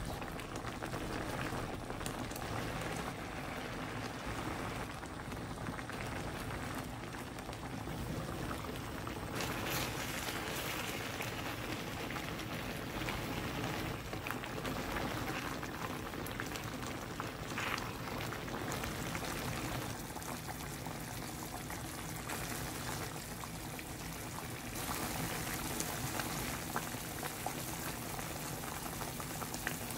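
Cream sauce simmering in a frying pan, bubbling steadily with many small pops.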